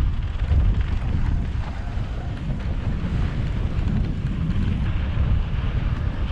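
Wind buffeting the microphone of a camera carried on a mountain bike riding downhill at speed, a steady low rumble with the hiss of the tyres on the dirt trail mixed in.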